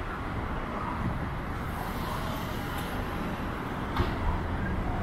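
Busy city street ambience with steady road traffic noise, and a single sharp tap about four seconds in.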